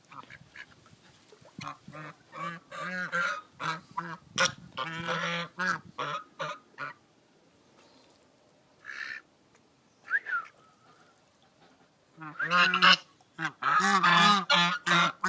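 Geese honking, a rapid series of short, harsh calls, in two bouts with a lull of a few seconds between.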